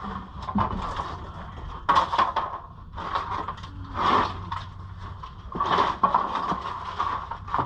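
A few scattered knocks and cracks from work on rotten wood, with louder hits about two, four and six seconds in.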